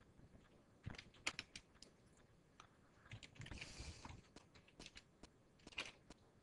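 Faint keystrokes on a computer keyboard as a command is typed, the clicks coming in small clusters about a second in and again near the end, with a short soft hiss a little past halfway.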